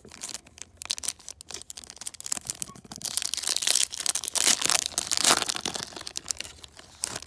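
Foil trading-card pack wrapper crinkling and being torn open by hand, with a denser, louder stretch of tearing and crackling from about three seconds in.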